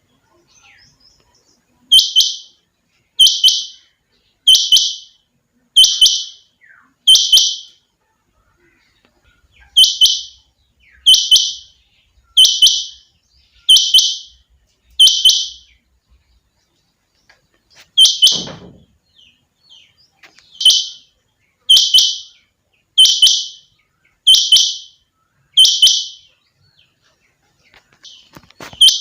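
Female rain quail calling: short, sharp, high calls repeated about once every 1.2 s in runs of five, with pauses of a couple of seconds between runs. A low thump comes along with one call about two-thirds of the way through.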